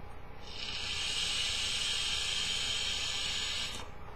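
A draw on a Joyetech Cubis sub-ohm vape tank: a steady hiss of air and vapour pulled through the tank as the coil fires, lasting about three seconds.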